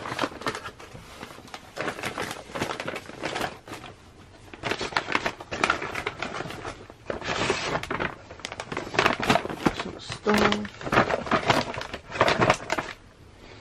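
A mailer package being opened and handled, its wrapping crinkling and rustling in runs of short bursts, with paper envelopes being pulled out and set down.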